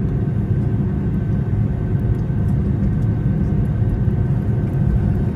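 Steady low rumble inside the cabin of an Airbus A320neo on the ground after landing, with a few faint steady tones above it.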